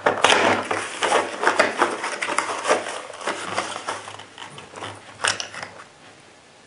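Cardboard shotgun-shell box being opened and its paperboard inner tray slid out: a run of scraping and crinkling, then sparser clicks and taps as a 20-gauge shell is drawn out of the tray, with one sharper click about five seconds in.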